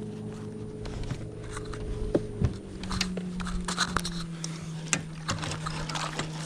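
A small motor hums steadily, then drops to a lower pitch about two and a half seconds in, with scattered sharp clicks and knocks over it.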